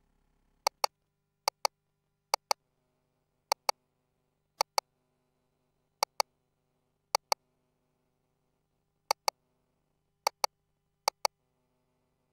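Ultrasound console clicking in pairs, about ten double clicks spaced irregularly. These are the machine's key or trackball-button clicks as caliper points are set for amniotic fluid pocket measurements. A faint steady hum lies underneath.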